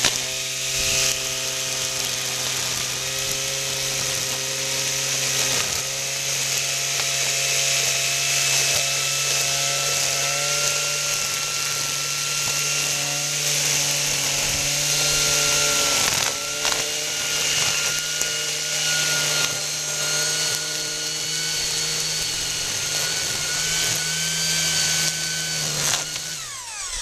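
Corded electric string trimmer running with zip ties fitted in place of trimmer line: a steady motor whine, wavering a little in pitch, over the hiss of the ties whipping through long grass. It slows and stops near the end.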